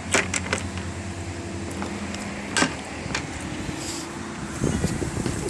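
A steady low mechanical hum, with a few sharp knocks and clicks scattered through it.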